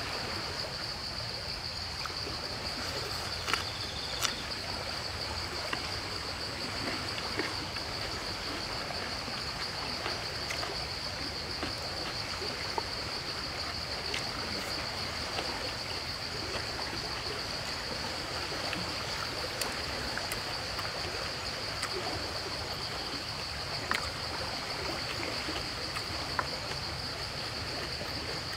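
Steady ambient background: an unbroken high-pitched drone over an even hiss, with a few sharp, light clicks here and there.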